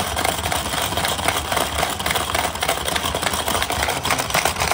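Hungry frog marble game being played flat out: several players hammering the plastic frog levers, a fast, continuous plastic clatter of snapping frog mouths and rattling marbles.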